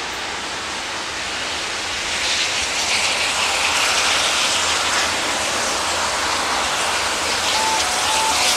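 Southern Railway West Country class steam locomotive 34092 City of Wells working a passenger train, its exhaust and running heard as a steady rushing noise that grows louder about two seconds in. Near the end a two-note alternating tone starts up, high and low in turn.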